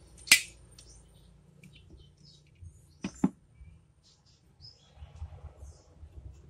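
Wooden toy pistol being worked by hand: one sharp wooden clack near the start, then two quick clacks about three seconds in. Faint high chirps are heard between them.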